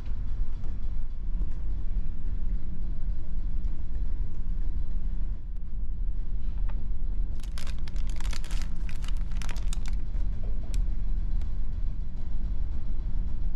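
Steady low drone of the ferry's engines through the ship, with a plastic bread-roll wrapper crinkling for about two seconds from around seven seconds in.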